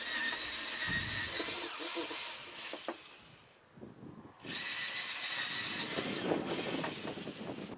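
A power tool motor running in two long spells with a steady whine, stopping for about a second partway through.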